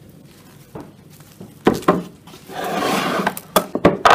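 Plastic cling film being pulled and crinkled around balls of dough. A rasping stretch of about a second comes near the middle, with a few sharp clicks and taps around it.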